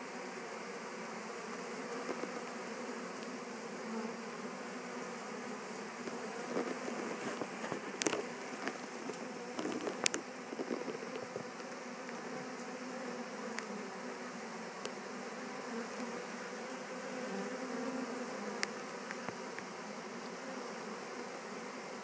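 Steady buzzing hum of a honey bee swarm massed at a hive entrance, the bees walking in to settle into their new home. A few sharp clicks stand out around the middle.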